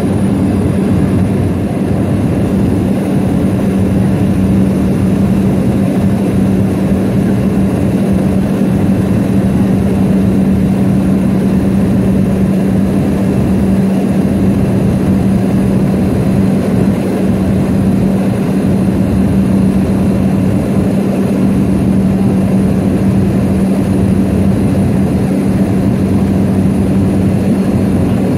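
A seaplane's engine and propeller running steadily in cruise, heard from inside the cabin: a loud, even hum with a strong low tone that does not change.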